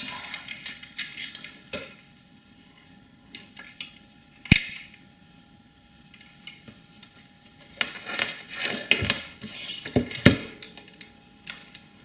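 Hard clicks and clatter of a multimeter and its test leads being handled and set down on a workbench: one sharp click about four and a half seconds in, then a run of clicks and knocks near the end.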